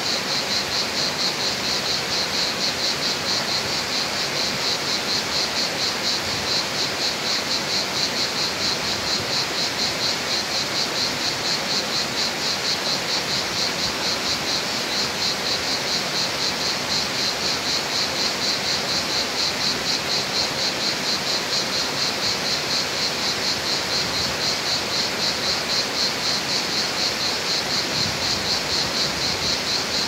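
Water spilling steadily over a low stone weir into a stream, under a loud, even, fast-pulsing insect chirring.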